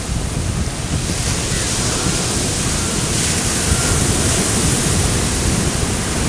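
Steady rushing noise of wind and sea waves, with wind buffeting the microphone.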